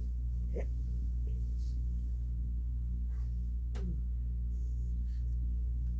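A steady low hum with several evenly spaced tones, and two faint falling glides, one about half a second in and one near four seconds.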